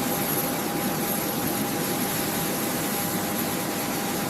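Steady rushing machine noise with a constant mid-pitched whine and a faint high whistle held throughout.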